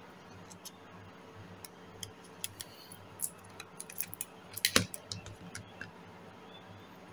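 Handling noise from a clear plastic spool of monofilament shock-leader line: a run of light clicks and ticks as the spool is turned and line is pulled off it. There is one louder sharp click a little before five seconds in.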